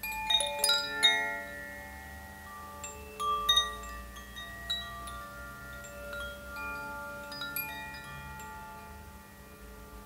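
Chimes ringing: clusters of high metallic notes that overlap and die away slowly, most in the first second and again about three and a half seconds in, over a faint steady low hum.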